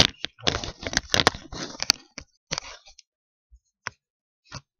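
Hard plastic clicking, scraping and rattling as a Beyblade is fitted onto its launcher. It is busiest in the first two seconds, then thins to a few single clicks.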